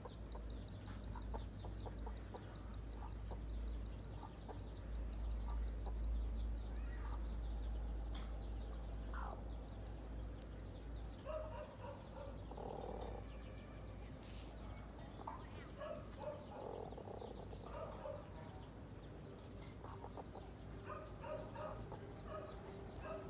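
Hen clucking in short runs of repeated calls from about halfway through, her warning at a cobra as she shields her chicks. A steady high-pitched whine runs behind, with a low rumble in the first half.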